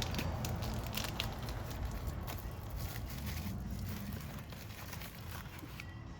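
Scattered light clicks and knocks of hands and tools working on a motorcycle's oil filter, over a steady low hum that slowly fades.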